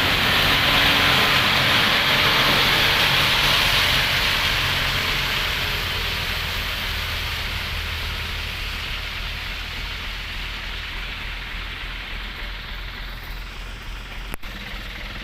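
Heavy diesel truck passing on a wet road: a loud tyre hiss, strongest at first and fading over about ten seconds, over a low engine rumble. A single sharp click near the end.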